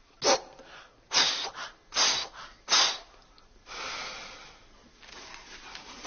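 A person making four short, sharp breathy blasts through the nose or mouth, under a second apart, then one longer, softer breath out.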